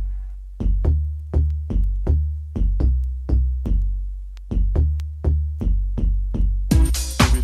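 House music from a DJ mix: a stripped-down break of drum-machine hits over a deep bassline, with the full track's synths and percussion coming back in near the end.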